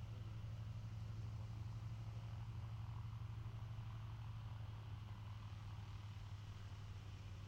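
Douglas C-47 Skytrain's twin radial engines running at low taxi power, a steady low drone.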